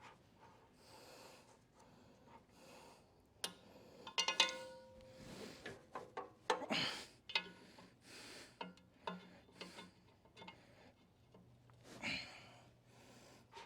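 Heavy, effortful breathing as a small-block engine is turned over slowly by hand with a wrench. Scattered metal clicks, and a ringing metal clank about four seconds in.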